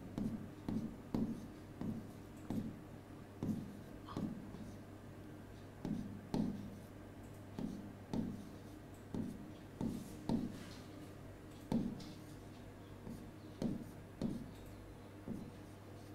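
Faint taps and short scratchy strokes of a stylus writing on a pen tablet, irregular at about one or two a second, over a low steady hum.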